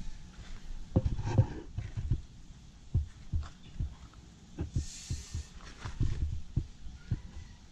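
Handling noise from a handheld camera: irregular low thumps with a few sharp knocks, and a short rustling hiss about five seconds in.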